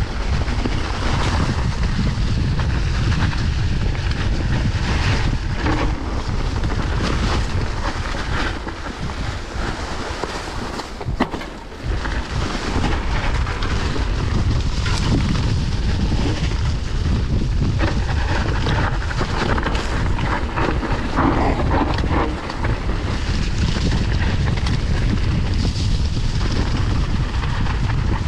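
Wind buffeting the camera microphone during a fast mountain-bike descent, a heavy rumble mixed with the hiss of tyres rolling over dry leaves and dirt and frequent knocks and rattles from the bike over bumps. It eases off briefly around the middle.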